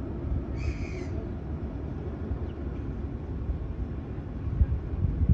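A steady low outdoor rumble of wind and sea by the rocks, with a few stronger low thumps near the end. About half a second in, one short, high-pitched bird call sounds.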